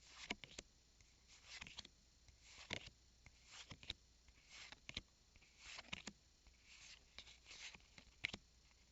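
Pokémon trading cards being slid and flipped one by one: faint, irregular papery scrapes and flicks, about one or two a second.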